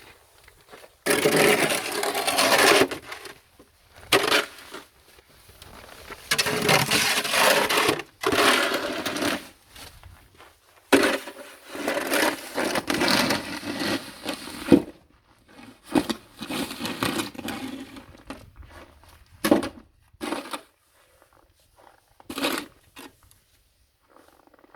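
Snow shovel scraping and pushing snow in repeated strokes, each lasting one to three seconds, with short pauses between.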